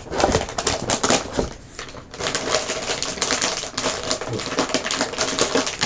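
Plastic snack packaging crinkling and rustling as it is handled, in a rapid irregular crackle.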